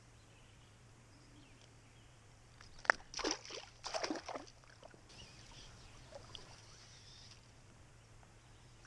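A small smallmouth bass dropped back into the river beside the boat: one sharp slap on the water about three seconds in, followed by about a second and a half of splashing.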